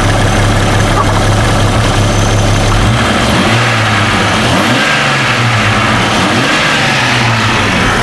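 Jeep 4.0L inline-six engine idling, then revved by hand at the throttle about three seconds in, with its rpm rising and wavering. The engine has an intermittent misfire, and the revving is meant to provoke it.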